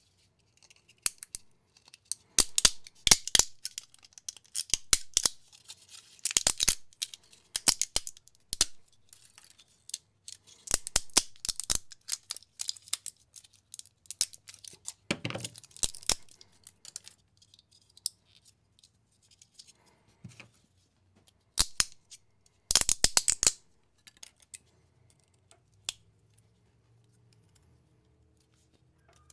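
Flush cutters snipping and snapping 3D-printed plastic support material off a small printed figure. The sound comes in irregular clusters of sharp clicks and crackling plastic breaks, with quiet gaps between them and fewer snips near the end.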